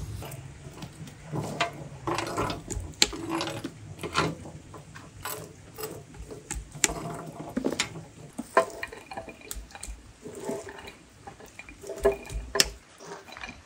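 Metal spoon pressing and knocking on roasted chestnuts, cracking their shells: irregular clicks and crackles. Near the end, chestnuts are dropped into a bowl with a few louder knocks.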